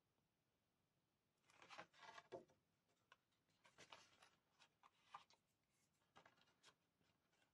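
Faint rustling and soft ticks of paper card being handled, a few brief scrapes and taps scattered through otherwise near silence.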